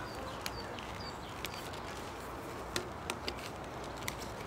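A handful of sharp plastic clicks and knocks as black PVC pipes are pushed and twisted into their elbow connectors, over a steady outdoor hiss.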